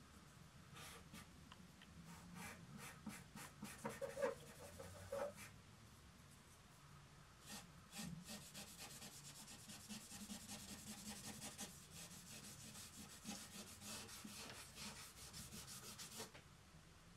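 Faint scratching and rubbing of a drawing tool and hand on paper, in scattered short strokes at first and then a long run of quick strokes from about eight seconds in until near the end. A few louder light taps come about four and five seconds in.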